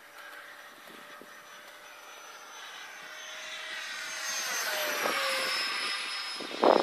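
Electric ducted fan of a radio-control F-22 Raptor model jet (70 mm ten-blade fan, BL-32 brushless motor) whining as it passes overhead. It grows louder, then drops in pitch as it goes by a little after the middle. Loud buffeting on the microphone near the end.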